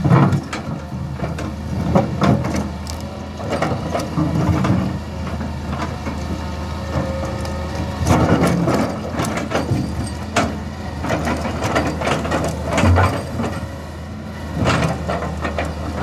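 Tracked hydraulic excavator's diesel engine running steadily while its steel bucket pushes and settles loose riprap stones, the rocks clattering and knocking against each other and the bucket in short spells every second or two.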